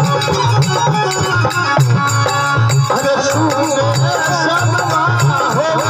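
Rajasthani folk devotional music: a steady, even drum beat with rattling percussion, joined about three seconds in by a wavering melody line.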